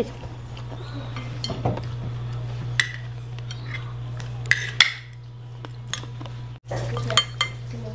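Cutlery clinking and scraping on plates and a glass serving dish as several people eat, in scattered light clinks a few seconds apart. A steady low hum runs underneath and drops out for a moment near the end.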